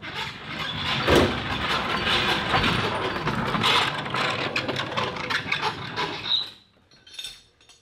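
Mechanical clatter thick with irregular clicks and knocks, with a heavy thump about a second in; it cuts off about six seconds in.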